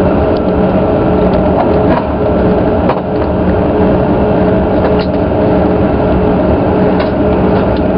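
Airliner cabin noise after landing: the engines' steady low rumble with a few constant hums, and a few light clicks.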